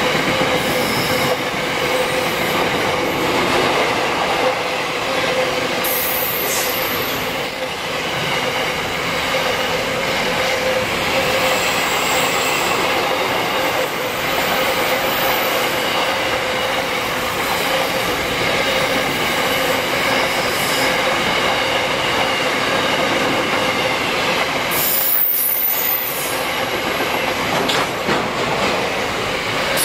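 Container wagons of a long freight train rolling past close by, the wheels running on the rails with a steady whine and squeal. A few brief high-pitched wheel screeches break through, once a few seconds in, again near the middle and once more near the end.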